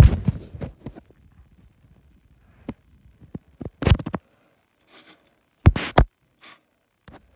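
Plastic CD jewel case being handled: a cluster of clicks and clattering right at the start, then separate sharp plastic clicks about four seconds and about six seconds in.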